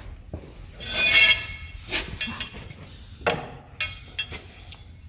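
Hand tools working on metal bolts of a drive-shaft universal joint: several sharp clinks and some scraping. About a second in there is a brief shrill squeak, the loudest sound.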